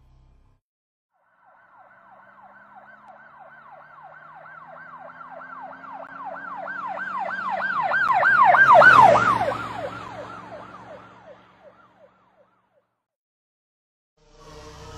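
Emergency vehicle siren in a fast yelp, about four rising-and-falling sweeps a second, with a low engine rumble underneath. It starts faint about a second and a half in, grows louder to a peak near nine seconds, then drops a little in pitch and fades away as it passes.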